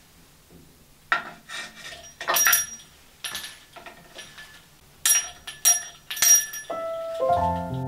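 Small brass bell under a wooden sign jingling as the sign is knocked about and turned over, then struck three times with a metal spoon, ringing briefly after each strike. Piano music comes in near the end.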